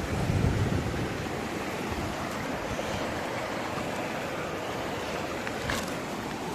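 Steady rush of flowing water from a stream or river, with a short click a little before the end.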